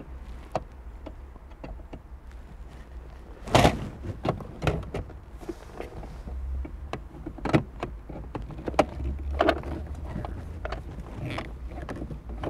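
Screwdriver working a screw in the plastic dashboard trim of a Mitsubishi 3000GT: scattered clicks, scrapes and knocks of the metal tool against screw and plastic, with a louder knock about three and a half seconds in, over a low steady rumble.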